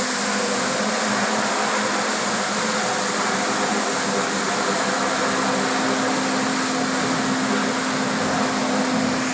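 Walk-behind floor scrubber dryer running: a steady motor hum over an even rushing noise.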